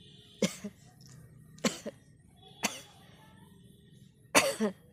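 A woman sneezing four times in quick succession, short sharp bursts a second or so apart, the last the loudest. The sneezes are brought on by tickling her nose with a grass flower.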